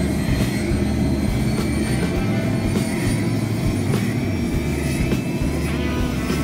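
Robinson R66's Rolls-Royce RR300 turboshaft engine running steadily on the ground with the main rotor turning slowly: a run-up to dry out the engine after a compressor wash and rinse.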